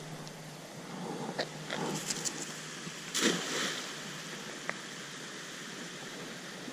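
Cast net thrown into spillway water and landing with a splash about three seconds in, over the steady rush of water through the spillway.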